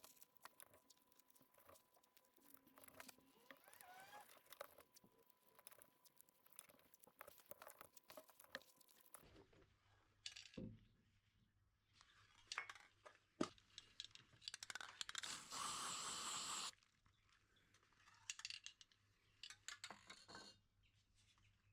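Aerosol spray paint can hissing in one steady burst of about two seconds, about two-thirds of the way in, with scattered small clicks and handling knocks around it; otherwise near silence.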